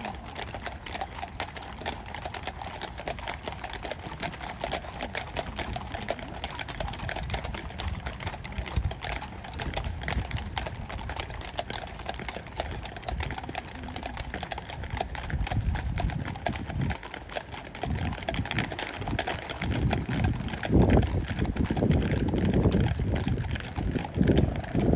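Several horses walking on stone paving, their hooves a steady stream of sharp clicks. A low rumble builds over the last few seconds.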